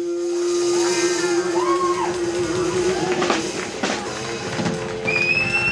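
Live country-rock band playing acoustic and electric guitars, bass and drum kit. A long held note rings for the first three seconds or so, then the drummer comes in with a run of drum and cymbal hits.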